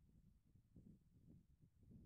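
Near silence, with only a faint, uneven low rumble.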